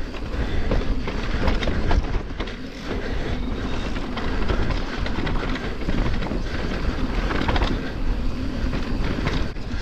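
Mountain bike riding along a dirt trail: tyre noise and a steady clatter of rattles and knocks from the bike over rough ground.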